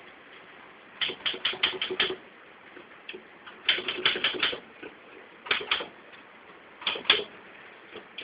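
Manual typewriter keys striking in short bursts: a quick run of about six strokes, another run of about six, then pairs and single strokes with pauses between.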